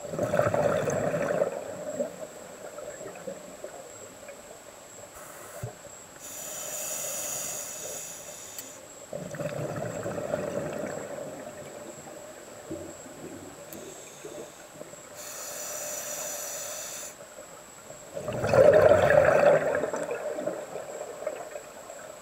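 Scuba diver breathing through a regulator underwater: three bubbling exhalations, at the start, in the middle and near the end, the last the loudest, each followed a few seconds later by a hissing inhalation.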